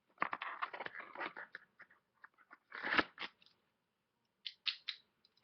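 Handcuffs being handled and ratcheted shut on a wrist: a run of quick clicks and rattles, a louder clack about three seconds in, then a few more clicks near the end.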